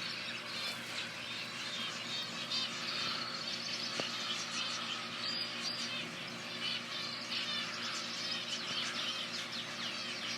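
A flock of small ornamental aviary birds chirping continuously, many short high calls overlapping.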